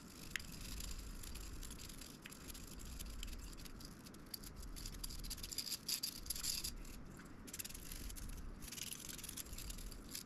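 Intermittent light scratching and rubbing in uneven bursts, the sound of hands working on a graphics card during teardown and cleaning.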